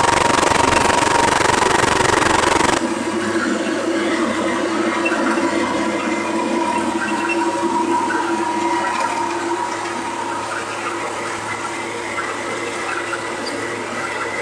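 A 1941 Chevrolet G7113 truck with its straight-six engine, heard from inside the cab while driving: a steady rush of wind and road noise over the engine's drone. About three seconds in, the rush drops suddenly and becomes lighter, and a steady hum comes through more clearly.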